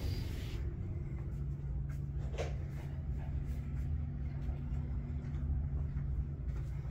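Steady low mechanical hum with a couple of held low tones, and a single light click about two and a half seconds in.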